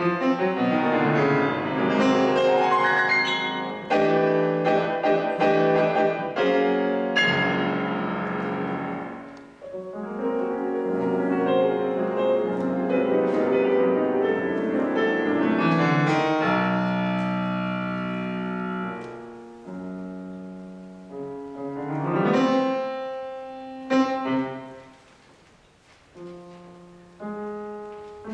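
Solo grand piano playing: loud, dense chords and fast figures for the first half, then long held chords. A quick rising run comes about two-thirds of the way through, followed by a sharp accent. It thins out to quiet, scattered notes near the end.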